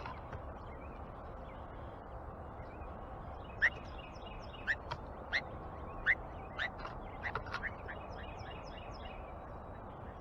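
Birds at a feeder calling: a scatter of short, sharp chip and call notes, thickest from about a third of the way in to near the end, over a steady background hiss.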